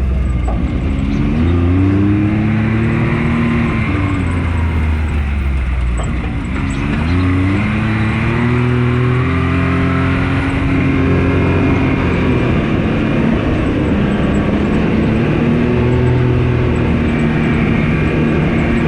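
Can-Am Maverick X3 side-by-side's engine running while driving, its note rising and falling several times in the first half with the throttle, then holding steadier, over road noise.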